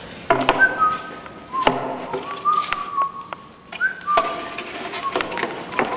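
Someone whistling a slow tune in a few held notes, with several sharp knocks in between.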